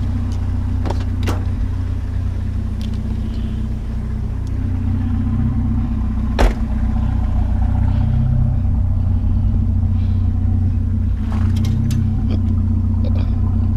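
A vehicle's engine running steadily with a low hum while it drives, with a few light clicks and a single sharp knock about six and a half seconds in.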